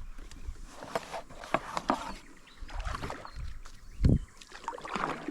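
Irregular water splashing and sloshing from movement in shallow creek water, with one loud low thump about four seconds in.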